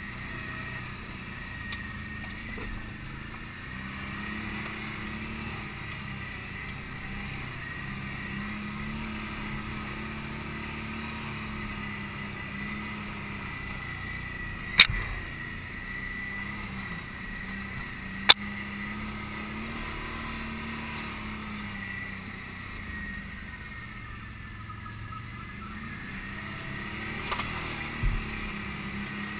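Can-Am Outlander ATV engine running steadily at a low, even pace, with a steady high whine alongside. Two sharp knocks a few seconds apart about halfway through, and a short rattle of knocks near the end.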